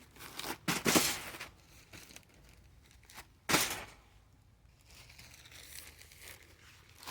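Rustling and crinkling handling noise in a few short bursts, the loudest about a second in and another at about three and a half seconds.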